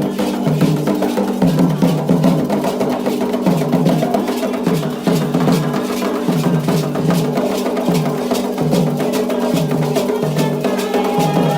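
Candomblé drumming on atabaque hand drums: a fast pattern of sharp, dry strokes over a deep drum stroke that repeats about once a second.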